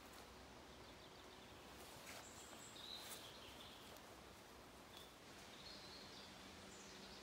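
Faint woodland ambience: a quiet hiss with scattered short bird chirps and whistles, a few of them near the middle and again near the end, and a few faint clicks.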